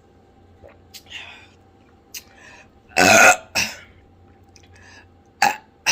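Loud burp about three seconds in, with a shorter second burp right after it, from drinking a carbonated hard seltzer. A few short sharp clicks come before and after.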